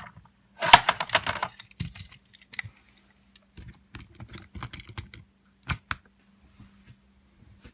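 Plastic toy train set pieces being handled, making irregular clicks and rattles, busiest about a second in; this is most likely the track switch being flipped and the set manually reset.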